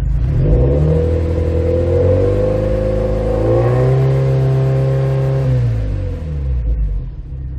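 Subaru WRX STI's EJ20 turbocharged flat-four, breathing through an HKS full-titanium exhaust, revved from idle in a stationary test. It climbs about a second in and holds steady, steps up higher near the middle and holds again, then drops back to idle about two seconds before the end.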